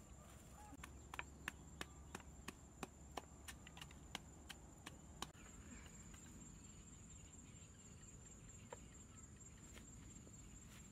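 A steady high insect trill, like a cricket, under low outdoor quiet. Over the first half comes a run of sharp light clicks and taps, about two or three a second, which then stop.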